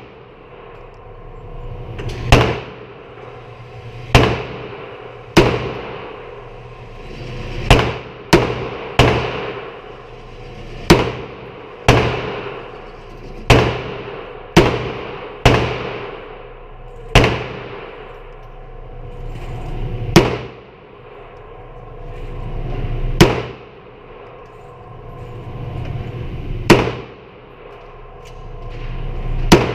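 Gunshots at a shooting range: about sixteen single shots at irregular intervals, each a sharp crack with an echoing tail, over a steady low hum.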